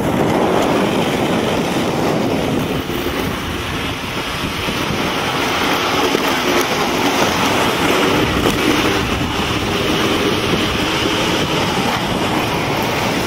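Steady rumble of skate wheels rolling fast over rough asphalt, mixed with wind buffeting the microphone; it grows a little louder about five seconds in.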